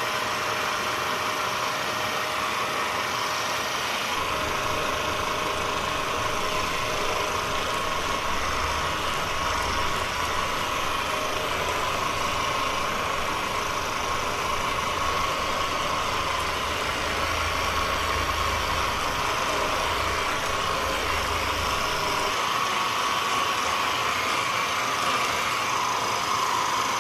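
Theragun percussion massage gun running with a steady whine, used to loosen the muscles before a spinal adjustment. A deeper low hum joins about four seconds in and drops away a few seconds before the end.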